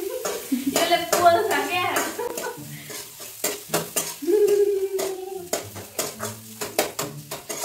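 Metal spatula scraping and clicking against a wok as instant noodles and vegetables are stirred, with a light sizzle of frying. A woman laughs and vocalises in the first couple of seconds, and a steady held note sounds for about a second midway.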